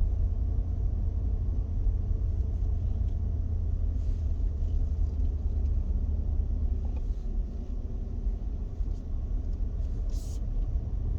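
A car driving along a paved road: a steady low rumble of engine and tyre noise, easing a little for a moment about eight seconds in.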